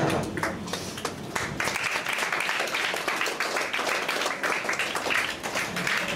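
Audience clapping, starting as scattered claps and filling into steady applause about a second and a half in.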